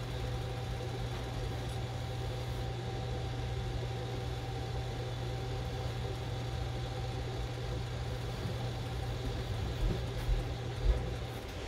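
Ninja Foodi air fryer running with a steady hum and a rattle from something it is pressed against vibrating; a few soft knocks near the end.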